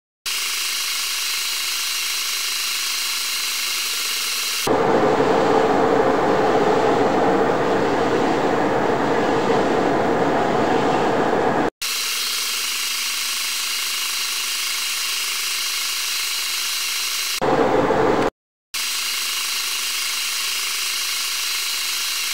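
Manual metal lathe running as it turns a taper on a steel workpiece: a steady machine whine with a fixed set of tones. It is louder and rougher from about five seconds in to near the middle, and again briefly later on. The sound cuts off abruptly twice.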